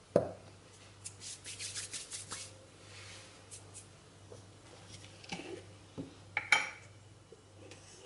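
Kitchen dishes and utensils being handled on a countertop: a sharp knock just after the start, a second or so of rustling and scraping, then a few clicks and a glassy clink near the end.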